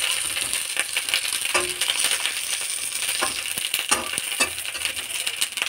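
Small whole eggplants frying in hot oil in a steel kadhai: a steady sizzle, with a metal spatula clinking and scraping against the pan at irregular moments as they are turned.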